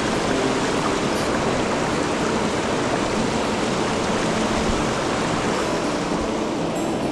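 Mountain headwater stream running, a steady rush of water.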